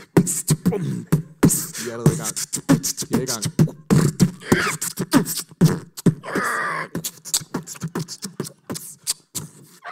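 Human beatboxing: a fast stream of sharp clicks and drum-like sounds made with the mouth, with a few held pitched vocal notes about halfway through.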